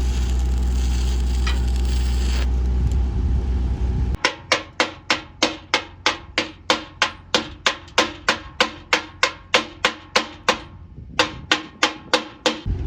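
Steady crackling noise over a low hum, typical of arc welding on the pump pipe. About four seconds in it cuts off abruptly into a regular run of sharp ringing strikes, nearly three a second, with a brief pause near the end.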